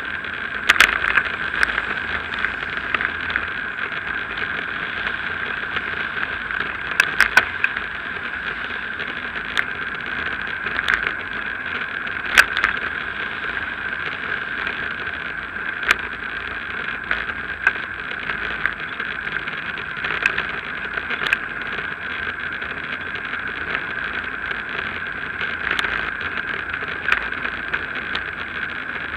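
Riding a bicycle along a rough asphalt cycle path, heard through a bike-mounted action camera: a steady rushing noise of wind and tyres, broken by sharp clicks and rattles as the bike and camera jolt over bumps and cracks.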